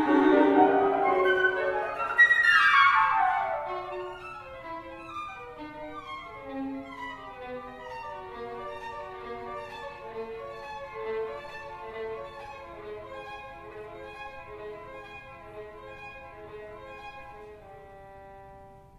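Contemporary classical chamber ensemble playing, with violin and cello bowing: a loud passage with a sharp accent and a fast falling run about two seconds in, then a thinner texture of held notes that gradually fades away.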